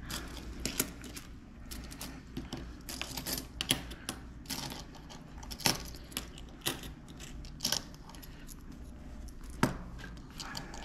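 Loose coins clinking as they are handled and sorted by hand, a run of short sharp clicks at irregular intervals.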